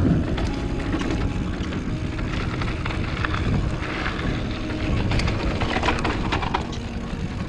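Mountain bike rolling fast down a dirt singletrack: a steady rumble of tyres on packed dirt and gravel, with short rattles and clicks from the bike over bumps and stones, more of them in the second half.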